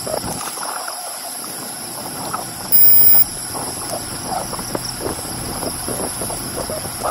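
Bicycle riding along a paved path: steady wind buffeting on the handlebar-mounted microphone over tyre rolling noise, with small irregular ticks and rattles. A loud high-pitched tone cuts in for about half a second around three seconds in.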